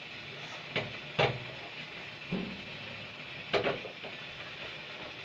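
Four light knocks and taps over a steady background hiss while pitha dough is worked by hand.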